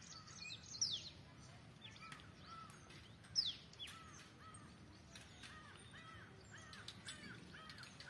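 Several wild birds calling: a run of short arched notes repeated about twice a second, building toward the end, and two loud, high, falling whistles, about one second and three and a half seconds in.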